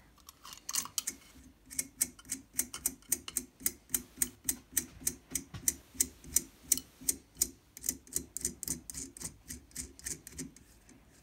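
Nut being backed off a threaded rod, clicking steadily about three times a second.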